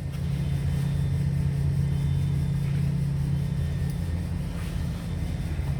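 Steady low machine hum from running shop equipment around a CNC router table, holding an even pitch and level.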